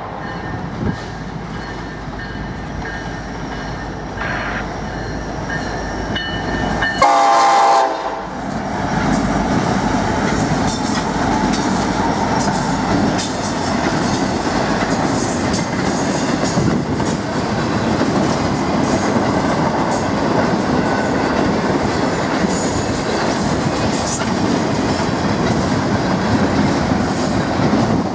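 Diesel freight locomotives rumble past and the horn sounds once, briefly, about seven seconds in. After that a long intermodal train of container cars rolls by with a steady rattle and clatter of wheels on the rails.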